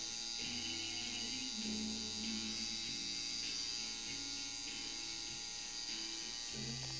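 Electric tattoo machine buzzing steadily while it works on the skin, with background music and its bass line underneath.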